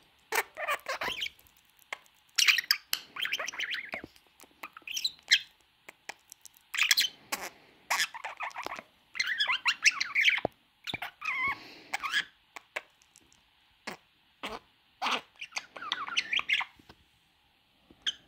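A budgerigar chattering up close: runs of fast warbling chirps mixed with sharp clicks, broken by short pauses.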